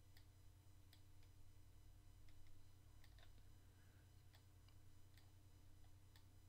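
Near silence: a low steady hum with scattered faint clicks of a computer mouse, at irregular intervals.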